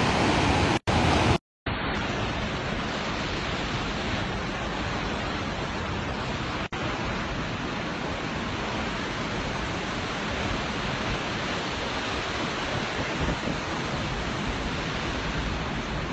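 Waterfall rushing: a steady, even noise of falling water. It drops out briefly about a second and a half in and again near the middle, where clips are cut together.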